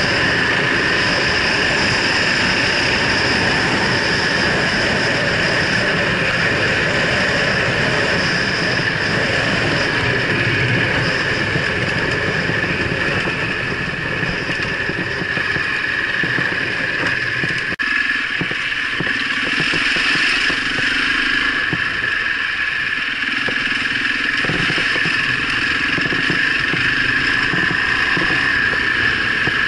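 Husaberg dirt bike's engine running steadily under way, heard from a camera mounted on the bike. Just past halfway there is a single click, and after it the engine's lower sound thins out.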